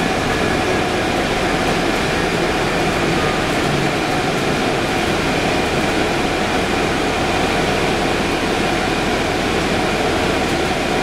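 Steady interior running noise of a 2011 Orion VII hybrid transit bus on the move, heard from inside the passenger cabin: drivetrain hum mixed with road and tyre noise, with no change in level.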